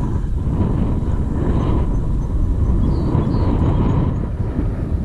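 Steady low rumble of wind buffeting the microphone on a moving boat, with a faint steady whine underneath.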